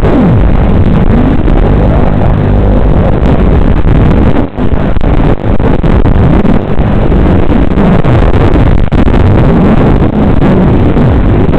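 FPV racing quadcopter's brushless motors and propellers buzzing loudly, their pitch rising and falling over and over as the throttle changes through the turns, with a few brief dips in level where the throttle is chopped.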